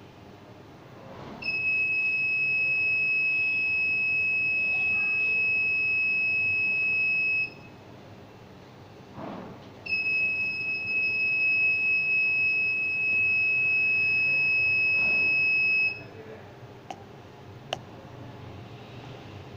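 Arduino home security alarm's buzzer sounding a steady, high-pitched tone for about six seconds, stopping, then sounding again for about six seconds. A soft thud falls in the gap, and a few light clicks come near the end.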